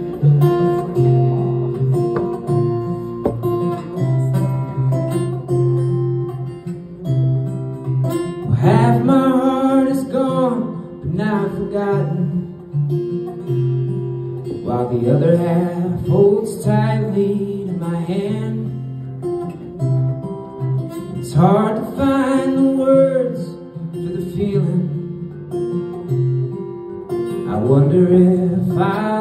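Solo acoustic guitar played fingerstyle and strummed. A man's voice starts singing over it about eight seconds in and carries on in phrases.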